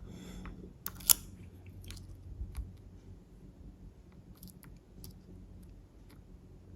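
Lock pick working the pin stacks inside an American 1100 padlock: a sharp metallic click about a second in, then fainter scattered ticks and scrapes as the hook lifts the pins one by one.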